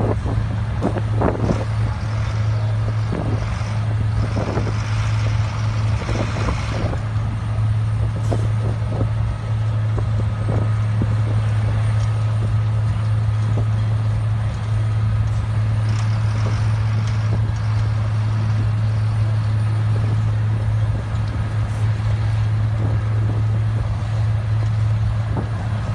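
XCMG XM200KII pavement milling machine running, a steady heavy-engine drone with irregular knocking and clatter over it.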